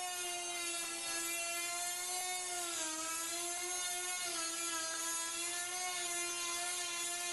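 A corded handheld rotary tool (Dremel-type) runs at high speed, cutting into a fiberglass cowling panel with a steady high whine. Its pitch sags briefly about three seconds in and again just after four seconds as the bit bites into the material.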